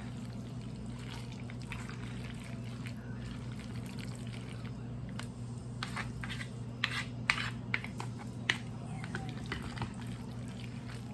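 Spoon mixing creamy macaroni salad in a bowl, making soft wet sounds, with a few sharp clicks of the utensil against the bowl between about six and nine seconds in. A steady low hum runs underneath.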